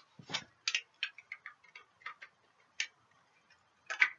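Irregular light clicks and taps of the hard plastic fuselage halves of an F-105 Thunderchief model kit being handled and fitted together, about a dozen sharp ticks with a few louder ones.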